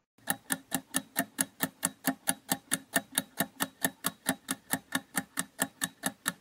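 Countdown-timer sound effect: rapid, even clock-style ticking at about five ticks a second while the quiz timer runs.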